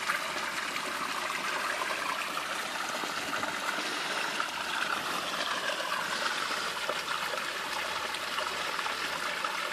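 Steady trickling of running water, even and unbroken.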